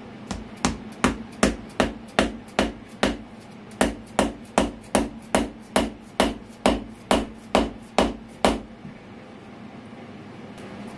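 Orange mallet striking a steel lathe drive centre to drive it into the end grain of a monkey puzzle log: about twenty sharp blows at a steady two to three a second, with a brief pause near the middle, stopping about three quarters of the way through.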